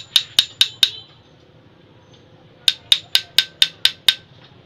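Steel rod tapping metal on metal against a scooter's rear clutch and driven pulley assembly, quick ringing clinks about four a second. Four taps open, then a pause of about two seconds, then seven more.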